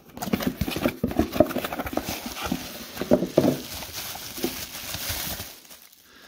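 Cardboard box being opened and a part unwrapped from bubble wrap: crinkling and rustling of plastic with irregular clicks and knocks of handling, dying down near the end.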